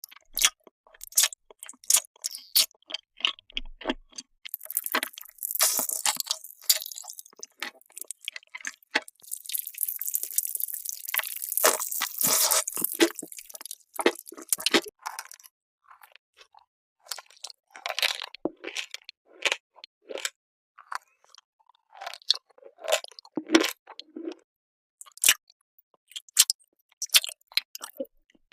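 Close-miked eating: crisp crunching bites and chewing, with two longer stretches of dense crackling about five seconds in and again from about nine to fourteen seconds.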